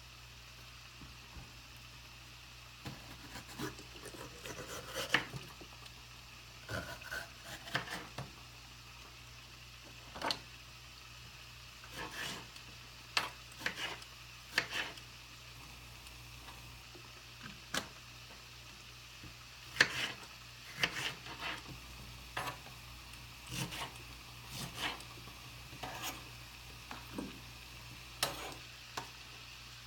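Kitchen utensils clinking and scraping against cookware or a dish: scattered short clicks and scrapes at irregular intervals, over a faint steady background.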